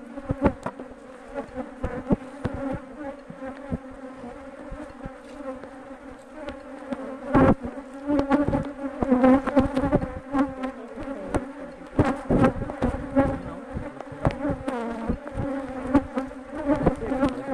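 Honeybees buzzing in a steady hum around an opened hive, with sharp wooden knocks and clatter as the hive is closed up, loudest about halfway through.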